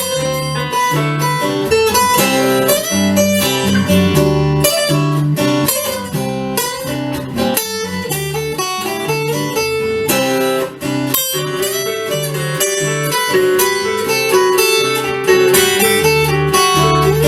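Guitar music: an instrumental break of plucked and strummed acoustic guitar, with bass notes under a melody.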